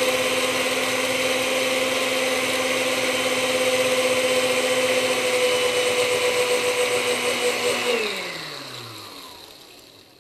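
Countertop blender grinding whole coffee beans on its highest setting: the motor runs at a steady pitch, then is switched off about eight seconds in and winds down, its pitch falling as it fades.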